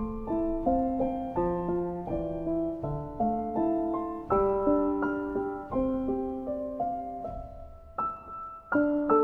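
Background piano music: a slow melody of single struck notes and chords, each note fading after it is played, with a brief pause just after eight seconds in.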